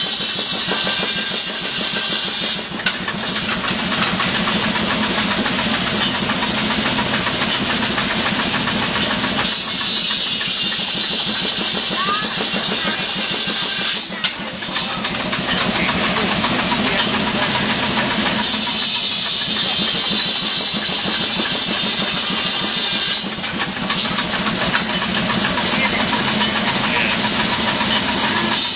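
Sawmill running: the saw cuts through aromatic cedar in repeated passes, with a short dip in loudness between passes, over the steady beat of the machinery driving it.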